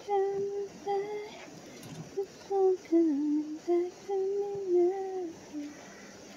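A woman humming a tune without words: a string of held notes that step up and down in pitch with short breaks between them.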